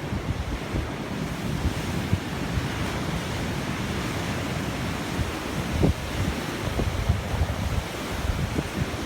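Surf from a rough, typhoon-stirred sea washing steadily, with wind buffeting the microphone in low gusts.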